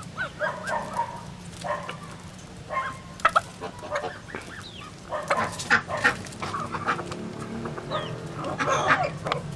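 Several chickens clucking and squawking over one another in short, bending calls, with scattered sharp clicks among them.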